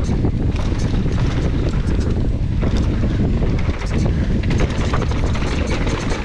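Downhill mountain bike riding fast over a loose dirt trail: wind rushing over the handlebar-mounted camera's microphone as a steady low rumble, with a constant patter of clicks and rattles from the tyres on gravel and the bike shaking over the bumps.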